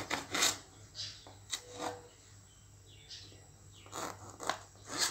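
Kitchen knife slicing ivy gourds on a wooden cutting board: irregular short cuts with the blade tapping and scraping the board. There are several strokes in the first two seconds and more near the end.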